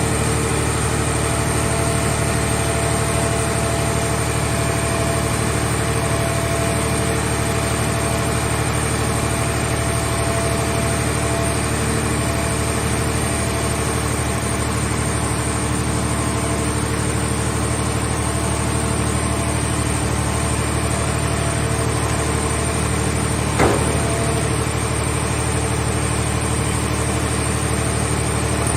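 Engine of a scrap car shell baler running steadily at idle, with one sharp knock late on.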